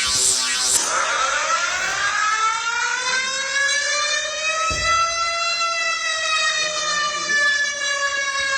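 Civil-defence-style siren wailing: one long tone that rises slowly to a peak and then falls gradually, starting about a second in as a pulsing electronic alarm tone cuts off. A brief low thump comes partway through.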